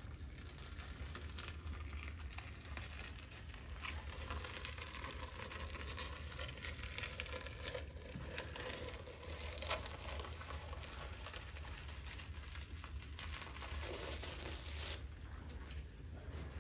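Plastic film crinkling and rustling as it is peeled off the surface of a tank of liquid latex, over a low steady hum.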